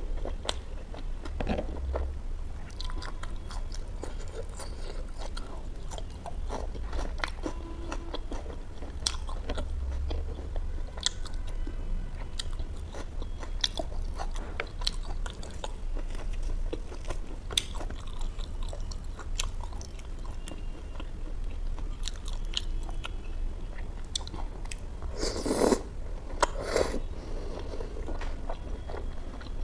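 Close-miked chewing of a mouthful of butter chicken and naan: wet mouth clicks and smacks throughout, with two louder smacks near the end, over a steady low hum.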